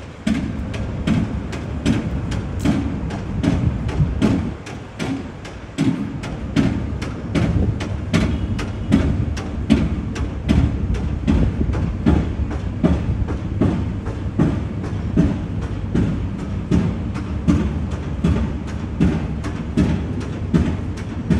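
Footsteps of someone walking on a paved sidewalk, about two steps a second, over a steady low rumble.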